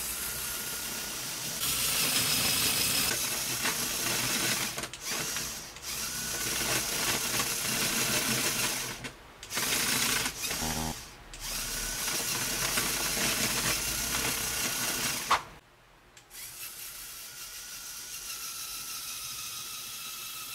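Lego Technic vehicle's electric motor and gear train whirring and clattering as it drives and climbs a ramp, with a few brief breaks; after the last break the whir is quieter and steadier.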